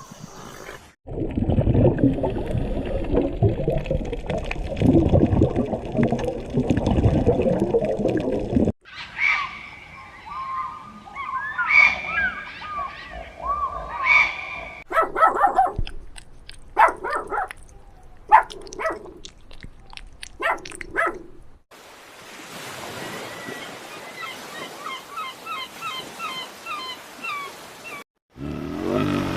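A run of different animal calls one after another. A long low stretch is followed by whistling calls, then a series of short sharp calls, then quick high chirps.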